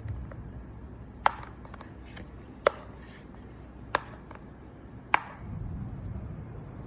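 Four sharp knocks or taps, evenly spaced about a second and a quarter apart, each with a short ring, over a low steady hum that swells slightly near the end.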